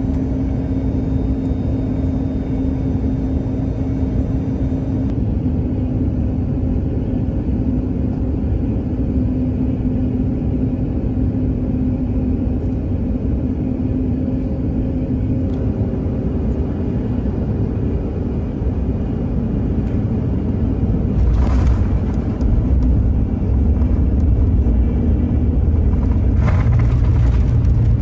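Cabin noise of a COMAC C919 airliner on final approach: a steady rumble from its CFM LEAP-1C turbofans with a constant hum running through it. About three-quarters of the way in, the low rumble grows heavier and louder as the aircraft touches down and rolls along the runway.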